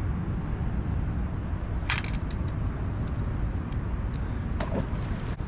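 Steady low rumble of outdoor background noise, with a sharp click about two seconds in, a few faint ticks after it, and another knock near the end.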